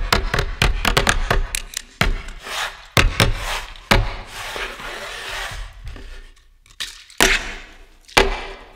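A fast, uneven run of sharp clicks and knocks, with heavier knocks about once a second, then a stretch of hiss. Near the end come two loud hits about a second apart.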